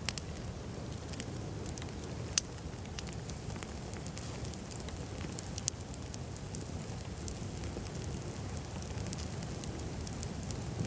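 Wood campfire burning: a steady low rush with scattered sharp crackles and pops, the loudest about two and a half seconds and five and a half seconds in.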